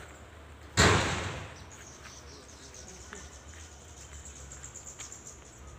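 A sudden loud burst of rushing noise about a second in that dies away over about a second, over faint steady insect chirring.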